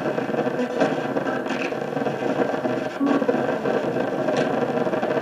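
RadioShack portable radio used as a spirit box, sweeping through the FM band: a steady stream of static hiss, choppy with short breaks as it jumps from station to station.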